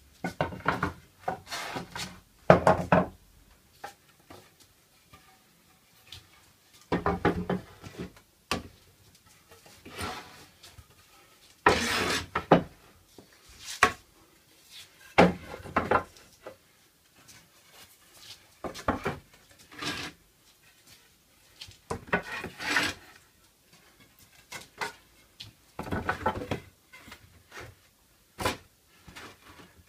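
Pallet-wood boards being handled and set down on a workbench: irregular wooden knocks, clatters and scraping slides in short clusters, with quiet gaps between.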